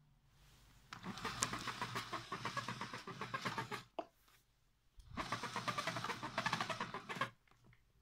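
Mains cable running through the cord reel of a 1982 Hitachi CV-7405 Stowaway cylinder vacuum cleaner, in two bursts of rapid rattling of about two to three seconds each, stopping abruptly each time.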